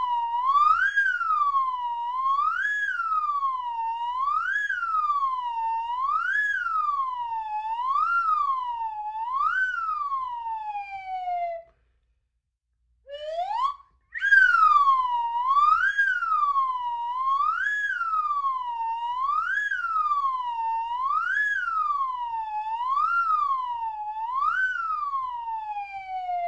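Slide whistle warbling, the pitch sliding up and down about once every two seconds, each run ending in a long downward slide. About halfway through it stops; after a second of silence a short upward slide sounds, and the warble starts again a moment later.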